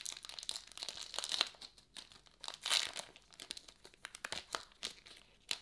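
Foil wrapper of a baseball card pack being torn open and crinkled as it is peeled back from the cards, with louder tearing about a second in and again near three seconds.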